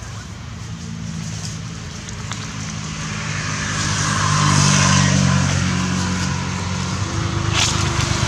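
A motor vehicle going past on the road: a steady engine hum with tyre hiss that grows to a peak about halfway through and then fades. A single sharp click comes near the end.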